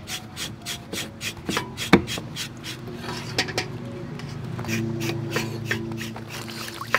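Kitchen knife slicing eggplant on a wooden cutting board: a quick run of short cuts, about three a second, the loudest about two seconds in.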